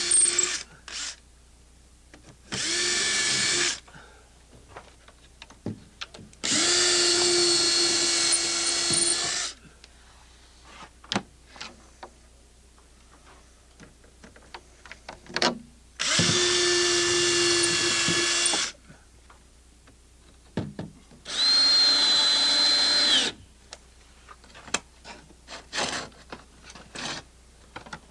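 Power drill running in four separate bursts of one to three seconds each, countersinking fasteners into fiber cement siding planks. Short clicks and knocks of handling fall between the bursts.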